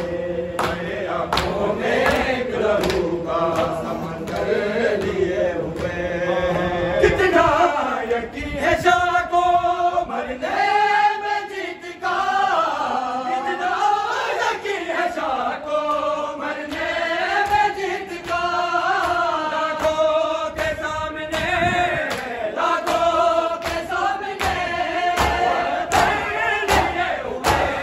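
Men's voices chanting a noha, an Urdu mourning lament, together in long rising and falling phrases, over steady rhythmic chest-beating slaps (matam).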